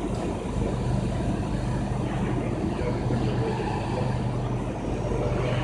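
Trumpf Trumatic 500 CNC punch press running with a steady low hum, with no punching strokes heard.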